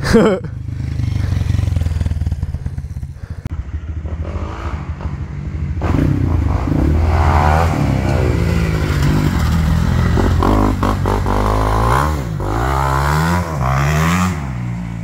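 Two-stroke KTM 250 SX dirt bike engine under way, running low and steady at first, then revving up and down repeatedly through the second half as the throttle is worked.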